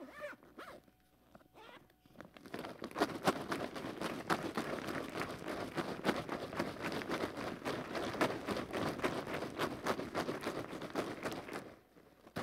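Paper raffle tickets being shaken and churned in a clear plastic bag: a steady crinkling rustle full of quick clicks. It starts about two seconds in and stops shortly before the end.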